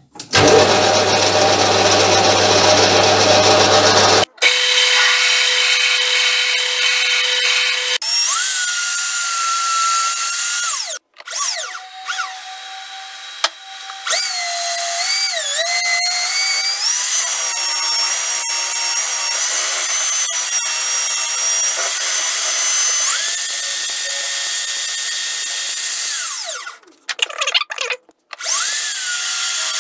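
Small metal lathe drilling a 9.5 mm pilot hole in a part held in its three-jaw chuck. Its motor whine steps and glides up and down in pitch, and the sound breaks off abruptly several times.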